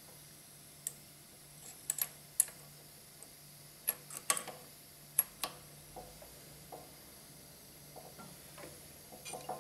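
Scattered sharp clicks and taps of the steel hollow mortise chisel and auger bit being fitted into the morticer's bushing and head, over a steady low hum.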